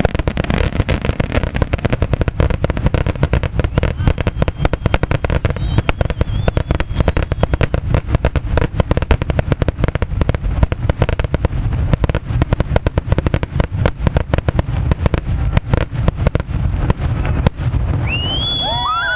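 Fireworks display: a dense, continuous barrage of rapid bangs and crackles that cuts off suddenly near the end.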